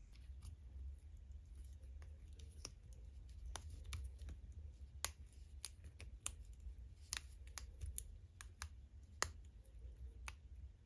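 Irregular light clicks and taps of small plastic model-kit parts and hand tools being handled, over a faint steady low hum.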